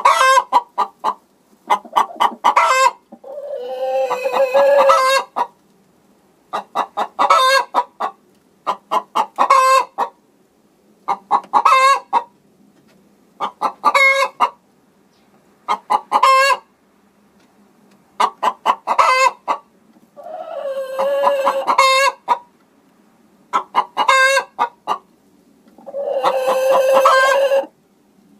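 Hen cackling: bursts of rapid short clucks about every two seconds, broken three times by a longer, drawn-out call.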